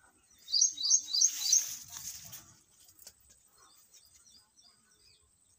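A bird calling a quick run of about five high, sharp chirps about half a second in, with fainter chirps later on. Leaves and vines rustle as they are pushed aside.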